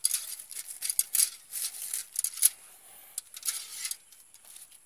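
Galvanized wire-mesh rat cage traps rattling and clinking as they are handled: a quick run of sharp metallic clicks and rustles that thins out near the end.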